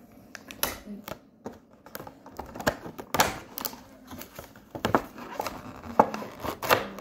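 Clear plastic packaging crackling and clicking as fingers pick at it and peel it off a chocolate gift box, in an irregular run of sharp crinkles that gets louder about halfway through.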